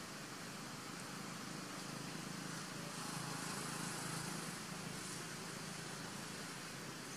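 Steady outdoor background noise, a hiss over a low hum, that swells a little about three to four seconds in, like a distant vehicle passing.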